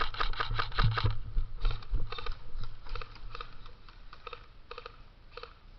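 Airsoft gunfire: a quick string of shots at about six a second that stops about a second in, then single shots at uneven spacing that grow fainter.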